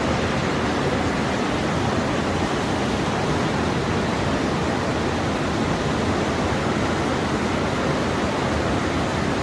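A river in flood rushing past: a steady, even noise of fast-moving water with no let-up.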